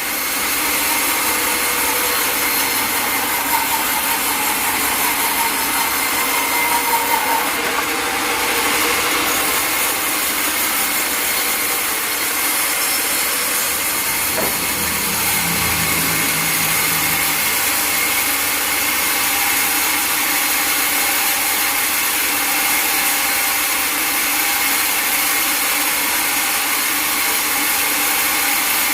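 Sawmill blade cutting through a log: a steady sawing noise with a constant high whine, running without a break.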